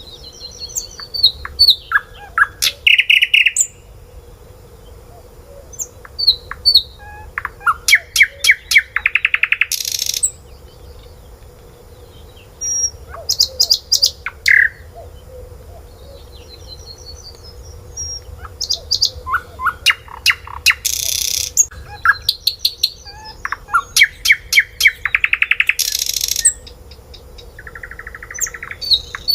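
Birds chirping and singing in repeated bursts of fast trills and rapid runs of high notes, some sweeping down in pitch, with short pauses between bursts.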